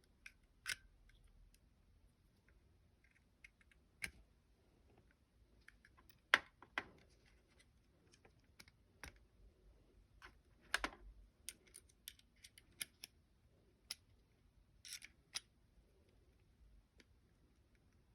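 Glock 29 pistol parts being handled during takedown or reassembly: a dozen or so irregular sharp clicks and light taps of metal and polymer parts against each other, the loudest a little past six seconds in and around eleven seconds in.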